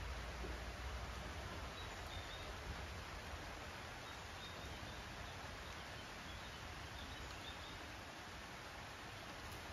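Quiet rural outdoor ambience: a steady faint hiss with a low rumble that eases after the first few seconds, and a few faint, short high chirps.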